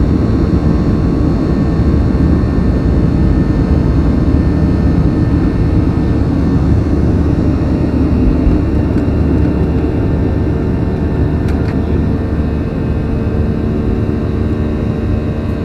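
Boeing 737-800's CFM56-7B jet engines running loud and steady, heard from inside the passenger cabin, easing slightly near the end.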